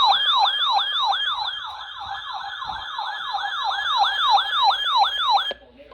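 Electronic siren-style alert tone, a fast repeating falling wail of about four sweeps a second, played as the attention signal of a weather-radio tornado watch broadcast. It cuts off abruptly near the end.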